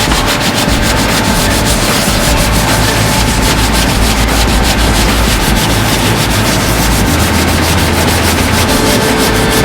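Hand block-sanding of body filler with 80-grit sandpaper, quick repeated back-and-forth strokes scraping steadily over the panel to shape the filler level.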